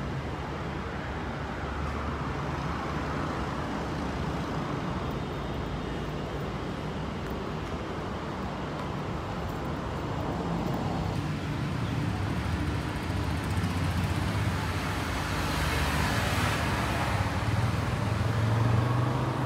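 Steady road traffic noise of passing vehicles, growing louder over the second half.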